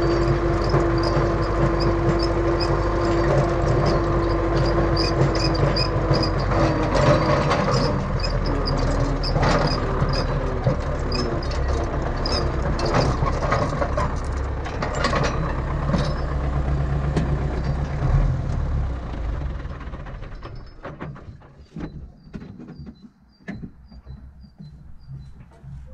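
Tractor diesel engine running under load while towing a ring roller across a field, with a whine over the first few seconds. The engine sound falls away about 19 to 20 seconds in, leaving quieter scattered clicks and knocks.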